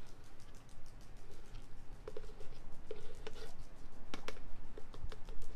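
Casting investment powder being poured and shaken from a plastic bottle into a rubber mixing bowl: scratchy rustling with many light ticks and clicks, the sharpest about four seconds in.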